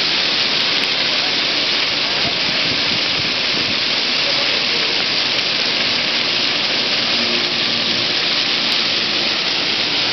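Plaza fountain jets splashing into their basin: a steady, loud rush of falling water.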